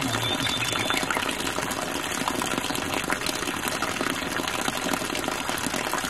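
Steady rush of water: an even hiss with many small ticks in it, holding level throughout.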